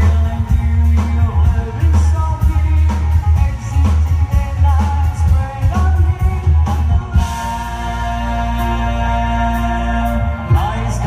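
Live rock band playing, with a woman singing over pulsing bass notes, drums and electric guitar. About seven seconds in, the band moves into a long held chord.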